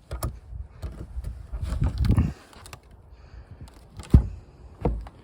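Handling noise on the boat deck: a few light clicks, a low rumbling shuffle about two seconds in, then two sharp knocks about four and five seconds in.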